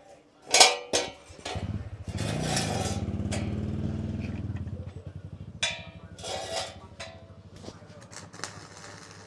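A short, sharp sound about half a second in. Then a small engine runs for about three seconds, its firing pulses slowing and dying away as it stops about five seconds in.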